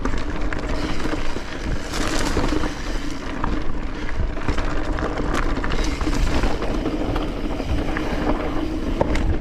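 Mountain bike rolling along a dirt trail: wind rushing over the microphone and tyre noise, with frequent small clicks and knocks as the bike rattles over bumps, and a steady low hum running through it.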